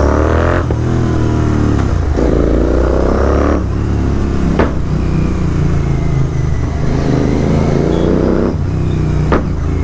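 Royal Enfield Continental GT 650's parallel-twin engine through Red Rooster aftermarket exhausts, accelerating through the gears in traffic. Its note rises in several pulls, each broken off by a gear change, over a steady low rumble, with two short sharp cracks about four and a half seconds in and near the end.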